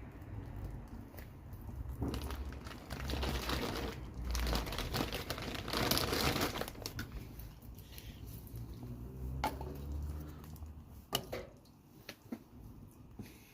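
Crinkling, rustling handling noise, loudest for a few seconds in the middle, then easing into a few sharp separate clicks near the end.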